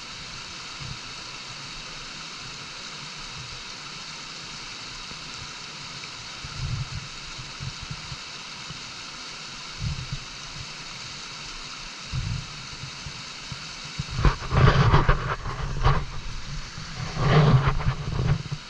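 Steady hiss of a stream's running water. Over it come a few low rumbling knocks, then two loud, rough rumbling bursts in the last few seconds.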